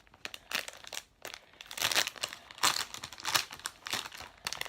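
Squishy toy's packaging crinkling in irregular bursts as it is opened by hand.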